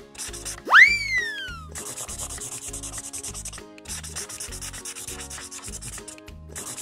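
Crayon scribbling on a paper coloring sheet: quick, even, rhythmic strokes of wax rubbing on paper, broken by a few short pauses. About a second in, a loud whistle-like tone sweeps sharply up and then slides slowly down.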